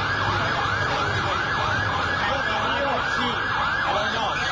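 Several emergency vehicle sirens sounding at once in a fast up-and-down yelp, about three sweeps a second, over steady street noise and a low rumble.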